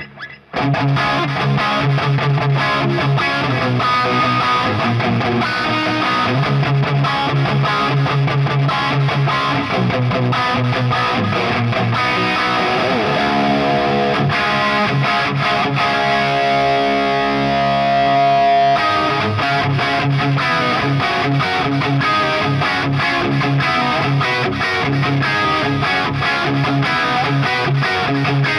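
Electric guitar with a Warman Zebra Classic Hot humbucker in the bridge position, playing rock riffs of repeated low notes. About midway there is a stretch of bends and a long held note, and then the riffing resumes.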